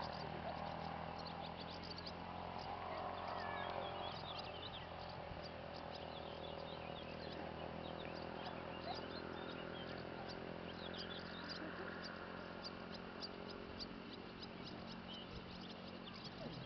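Small birds chirping in short, quick calls over a steady low hum. Near the end the calls come in a fast, even run.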